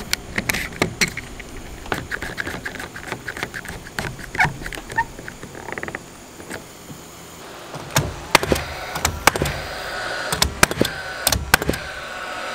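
A one-handed bar clamp ratcheting shut in a run of clicks as its trigger is squeezed, then a Paslode cordless framing nailer firing nails into the 2x4 top plate: several loud sharp shots about half a second to a second apart, with a steady whir between them.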